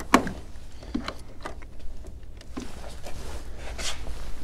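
Light clicks and knocks from a battery cable and its metal terminal clamp being handled in a van's engine bay. The sharpest click comes just after the start. A steady low hum runs underneath.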